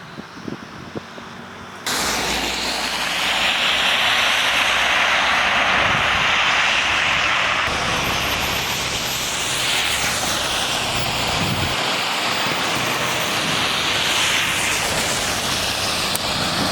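Road salt truck running close by, a loud steady hiss with an engine rumble underneath that starts abruptly about two seconds in.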